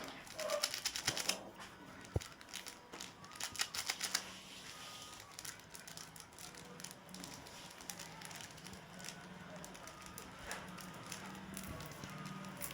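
Quick dry crackling clicks from chocolates and nimko snack being handled, thick in bursts near the start and again about three to four seconds in, then thinning to scattered ticks.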